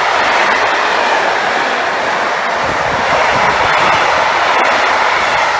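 A train passing close by: a loud, steady rush of wheels on rail with a few sharp clicks from the wheels over the track.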